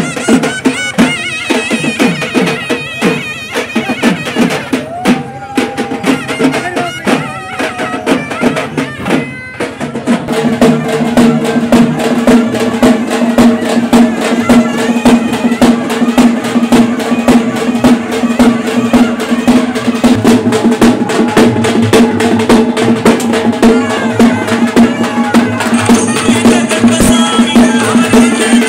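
Loud traditional festival music: dense, fast drumming under a reedy wind melody. From about ten seconds in it settles into a steady held drone note and grows louder.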